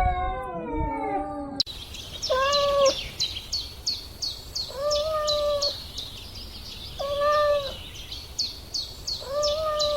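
A kitten meows with a gliding, wavering pitch that cuts off abruptly about one and a half seconds in. Then short, level-pitched kitten meows come four times, evenly about every two and a half seconds, over a steady run of high, quick chirps about two a second.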